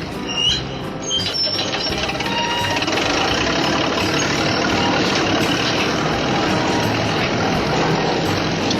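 Remote-control truck running steadily with a truck-like engine sound.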